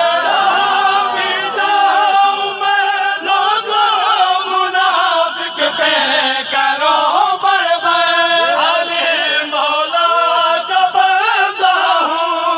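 A group of men chanting a noha, a Shia mourning lament, together in unison behind a lead reciter, their voices in long held lines with no break.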